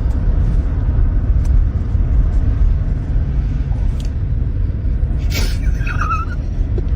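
Loud, steady low rumbling noise, with a brief high wavering squeal about five and a half seconds in.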